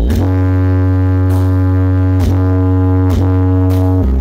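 Bass-heavy music played at high volume through a stacked wall of horeg-style subwoofer cabinets in a sound check: long droning bass notes that step to a new pitch every second or so, with a few sharp hits between them.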